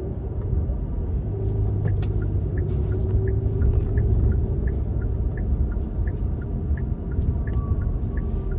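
Steady engine and road rumble inside a moving car's cabin, with a turn signal ticking at an even pace from about two seconds in.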